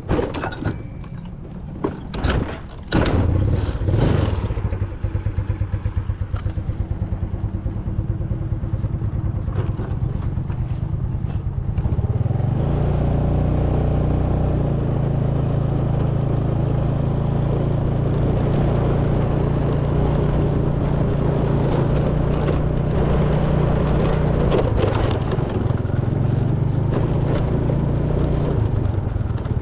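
Yamaha Mio scooter's small single-cylinder four-stroke engine: a few knocks and clatter of handling, the engine coming on about three seconds in, then running steadily and getting louder about twelve seconds in as the scooter moves off over the grass.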